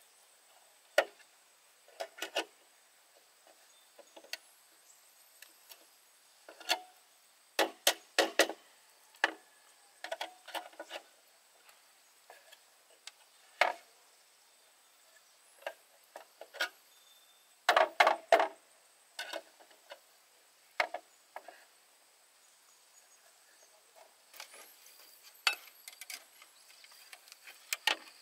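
Bamboo being worked by hand: sharp wooden knocks and clacks at irregular intervals, alone or in quick runs of two to four, loudest around eight and eighteen seconds in.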